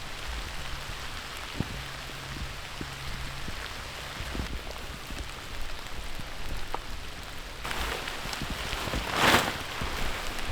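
Steady rain falling, with scattered drips and taps. Near the end a louder rush of noise swells up for about a second and fades.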